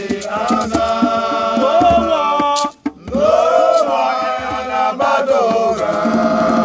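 Group of men singing together in harmony, holding long notes, with a short break about three seconds in.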